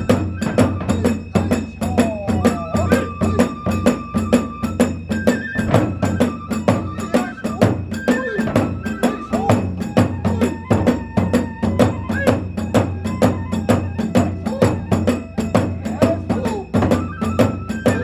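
Hiroshima kagura hayashi ensemble playing: a transverse bamboo flute carries a held, stepped melody over a fast, steady beat of the big drum and clashing hand cymbals.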